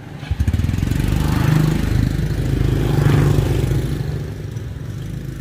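A small engine starts suddenly and runs, its speed picking up twice before easing off.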